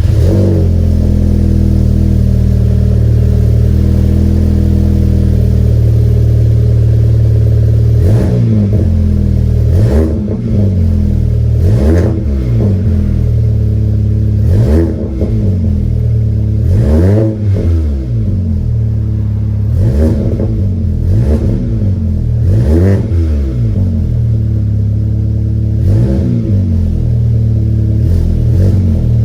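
VW Golf GTI MK7's turbocharged 2.0-litre four-cylinder EA888 engine through a Scorpion non-resonated catback exhaust. It idles steadily for about eight seconds, then is free-revved in a string of about ten short throttle blips, each rising and falling back to idle.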